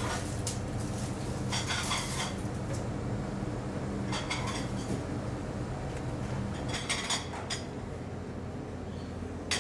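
Kitchen clatter: plates and utensils clinking and knocking in several short bursts over a steady low hum.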